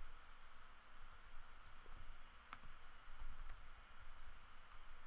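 Computer keyboard typing: quick, irregular runs of faint key clicks.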